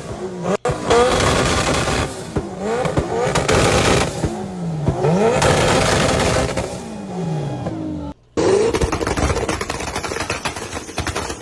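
Modified Honda car engine revved repeatedly, its pitch dropping and climbing again several times, with rapid exhaust crackling throughout. About eight seconds in, a sudden cut leads to another car's engine revving up.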